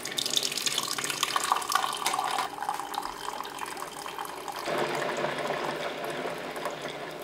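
Keurig single-cup coffee brewer brewing, pouring a stream of hot coffee into a mug with a steady splashing rush like a running tap. About two-thirds of the way through the sound grows fuller and deeper.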